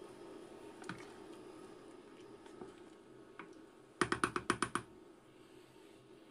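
Wooden spoon knocking against a stainless-steel soup pot, about eight quick sharp knocks in under a second about four seconds in, over a steady low hum. A few faint clicks come before it.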